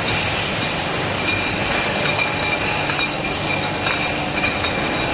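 Bottling-line machinery running with a steady high tone, and glass wine bottles clinking against each other on the conveyor.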